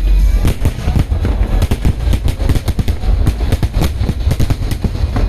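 Fireworks display: a rapid barrage of bangs and crackling bursts, several per second, setting in about half a second in over a low rumble.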